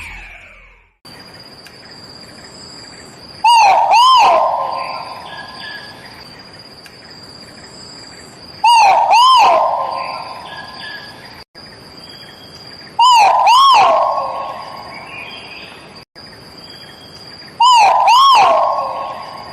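A Bornean bird known locally as teuweuw gives a loud two-note call, each note a quick rise and fall, four times about every four and a half seconds, each call trailing off. A steady high insect whine runs underneath.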